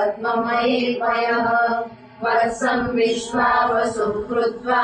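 A woman's voice chanting verses on a near-steady recitation pitch, with a short break for breath about two seconds in.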